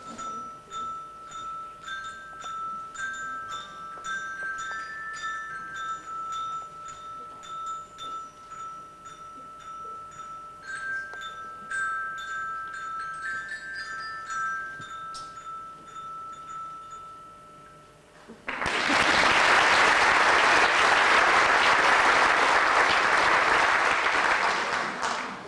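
Small handheld glockenspiels struck with mallets, playing a short tune over one repeated note with a few higher notes above it. The tune stops about eighteen seconds in and the audience applauds for about seven seconds.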